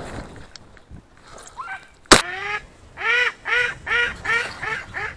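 A duck quacking: a faint call or two, then a single sharp crack about two seconds in, followed by a quick run of loud quacks, about three a second.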